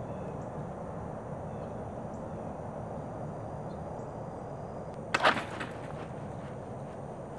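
A sharp double knock about five seconds in, over a steady high insect drone and light outdoor background noise.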